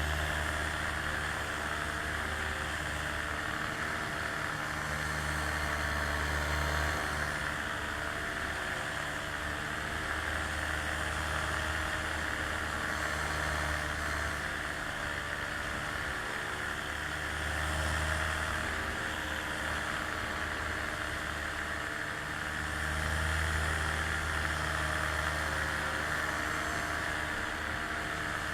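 Steady engine drone of an aircraft in flight: a continuous hum with a band of hiss, and a low throb that swells and eases every few seconds.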